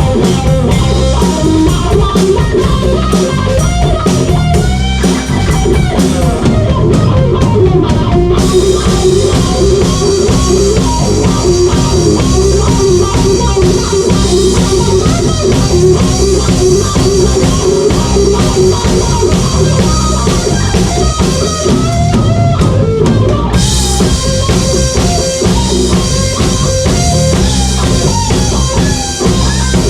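Blues band playing live without vocals: electric guitar with bent notes over bass guitar and drum kit. Cymbals come in about eight seconds in, drop out briefly after about 23 seconds, then return.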